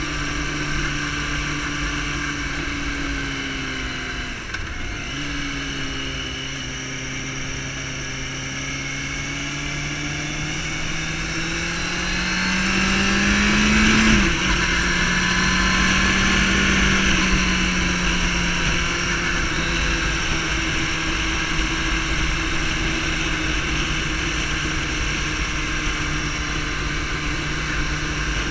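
Sport motorcycle engine running under way. Its pitch dips briefly about four seconds in, then climbs steadily as it accelerates, falls sharply about halfway through and holds fairly steady after that.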